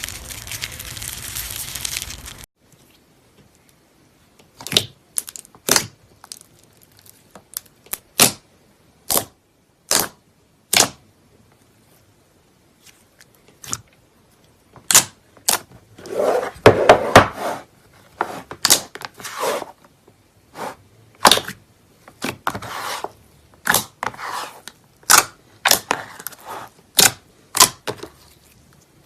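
Slime being worked by hand: a crinkly crunching for the first two seconds that cuts off suddenly, then a string of sharp pops and clicks from trapped air, with a dense run of them midway.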